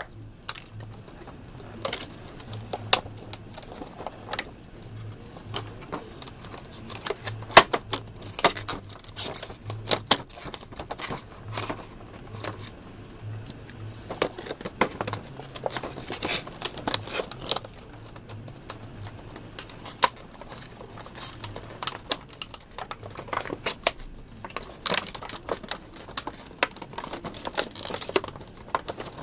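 Irregular clicks, taps and crackles of hard plastic: nylon trim removal tools being pried and worked loose from a tight plastic package and handled.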